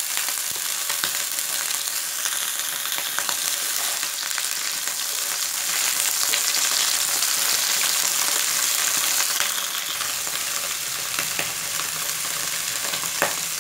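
Broccoli florets sizzling as they fry in hot mustard oil in a pan, with a wooden spatula stirring and scraping against the pan now and then.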